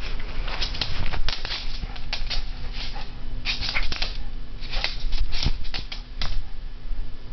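A Yorkshire terrier tussling with a toy: irregular clusters of short, scratchy scuffling noises.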